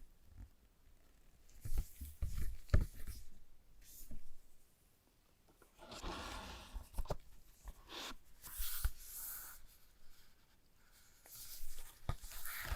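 Hands handling a phone's retail packaging: cardboard and plastic rustling and sliding in several short stretches, with a few light knocks a couple of seconds in and again near the end.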